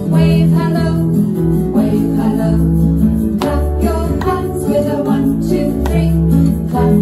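A children's song: singing over acoustic guitar, with steady low bass notes.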